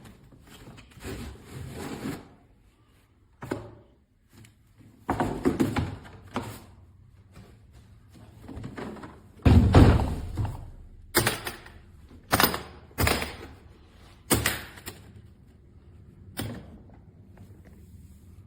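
A series of sharp knocks and thunks with rustling between them. The heaviest, deepest thunk comes about halfway through, and shorter knocks follow every second or so.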